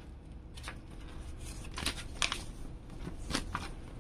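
A folded paper instruction leaflet crinkling and rustling as it is unfolded by hand: a handful of short, crisp crackles, the loudest about two seconds in.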